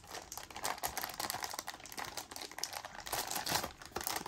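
Thin clear plastic bag crinkling as hands handle and lift the router sealed inside it: a dense, irregular run of small crackles.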